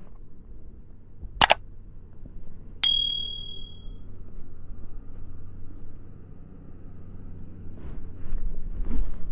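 A sharp click, then a single bell-like ding that rings for about a second, over a low steady hum; louder rumbling builds near the end.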